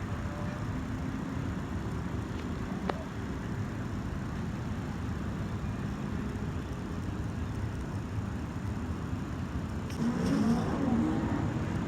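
Steady low rumble of road traffic, with a single sharp click about three seconds in.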